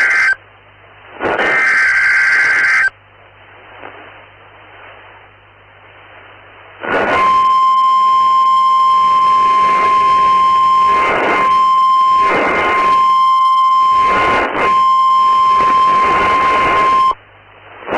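Emergency Alert System warning signal. Short bursts of harsh, buzzing digital header data end in the first three seconds. After a few seconds of faint hiss, a single steady weather-alert tone sounds for about ten seconds, crackled by reception static.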